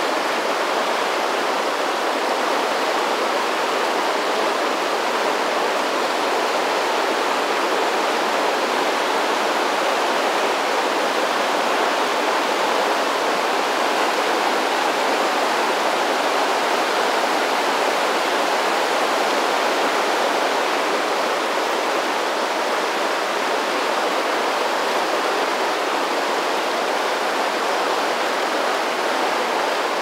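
Fast river current rushing and splashing over rocks in a whitewater riffle: a steady, even rush of water with no change throughout.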